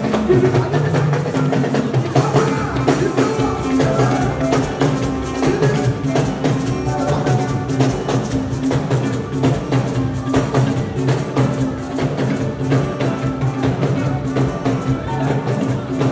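Live band dance music: drums and percussion keeping a steady beat over an electric bass guitar.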